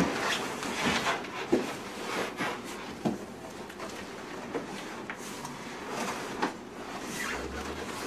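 Large, heavy cardboard box being handled: flaps rustling and scraping, with a few sharp knocks, and a low thud near the end as the box is tipped over onto its side.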